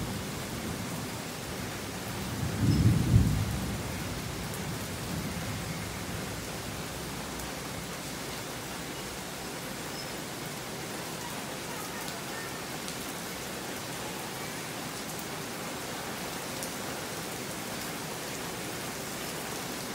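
Steady rain falling on a tiled porch and the street beyond, an even hiss. About three seconds in, a brief low rumble rises over it and dies away within about a second.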